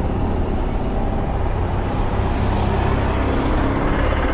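Steady low rumble of an idling engine and road traffic.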